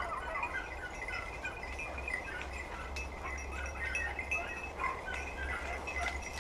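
Small metal bell jingling in irregular little bursts over a steady faint ringing tone.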